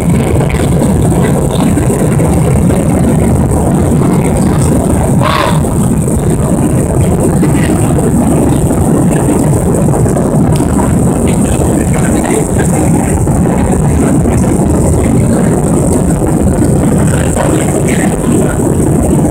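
Steady, loud roar of a jet airliner's engines and rushing air heard inside the passenger cabin during the climb. A brief higher-pitched sound comes about five seconds in.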